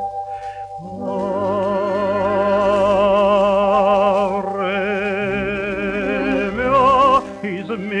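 A romance sung with orchestra: the singer holds long notes with wide vibrato over the orchestra's sustained accompaniment, rising to a higher note near the end.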